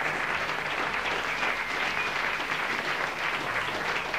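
Live audience applauding steadily, a dense patter of many hands clapping.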